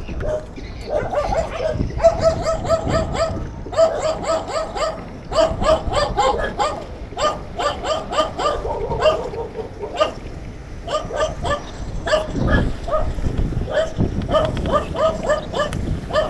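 A dog barking over and over in quick runs of short, high yelps, several a second, with brief breaks between the runs.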